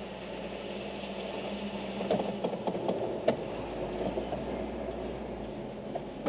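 Car driving over a rough unpaved road of dirt and loose stones: a steady engine and tyre rumble, with a run of clattering knocks and rattles from about two seconds in, the sharpest a little after three seconds.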